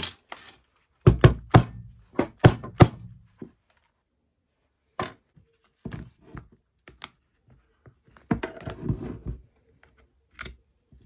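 Plastic housing of a cordless drill knocked and handled while it is being taken apart: a quick run of about six sharp knocks in the first few seconds, then scattered clicks and a short scraping rustle.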